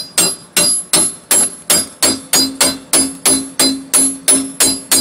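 A hammer gently tapping a flat pry tool wedged under a Mercedes-Benz GL450's fuel pump access cover, driving it through the cover's strong adhesive. The taps come steadily, about three a second, each sharp with a short metallic ring.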